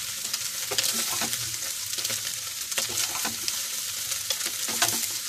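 Fried soya chunks sizzling in a little mustard oil in a nonstick pan, a steady hiss. A spoon scrapes and clicks against the pan several times as the golden-brown chunks are scooped out.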